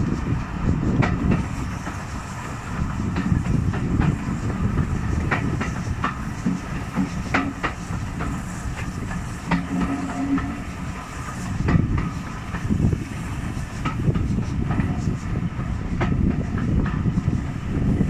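Wooden-bodied passenger coaches of a steam-hauled train running along the track, heard close up from a carriage window: a steady rumble from the wheels with irregular clicks as they pass over rail joints.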